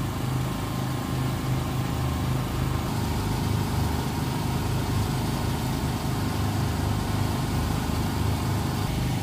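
Power generator's engine running steadily with a low, even hum.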